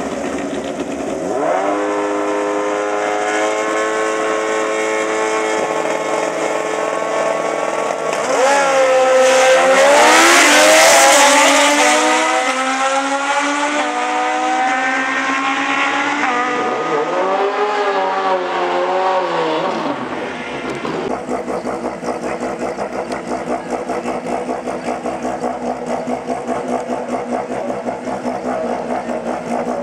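Drag-racing sport motorcycles revving at the start line, then launching and accelerating hard down the strip, the engine pitch climbing and dropping through several gear changes, loudest about 10 seconds in. From about 21 seconds in, another bike's engine runs with a steady pulsing beat at the line.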